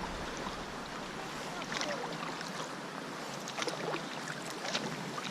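Kayak paddle strokes: blades dipping and water splashing and dripping at irregular moments over a steady wash of water.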